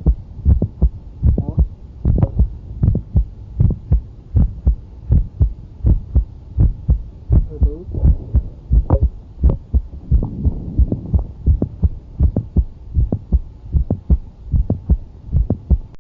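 Heart sounds heard through a stethoscope during a Valsalva manoeuvre: a steady run of heartbeats with a low hum beneath, and a mid-systolic click between the first and second heart sounds, the classic sign of mitral valve prolapse.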